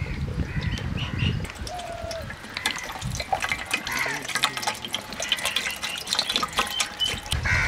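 Water pouring in a thin stream from a plastic bottle into a large empty metal pot, splashing on the metal bottom.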